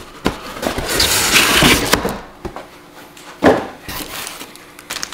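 Cardboard box and molded pulp packaging handled while a blender part is lifted out: a scraping rustle for about a second, a few clicks, then a sharp knock, the loudest sound, about three and a half seconds in.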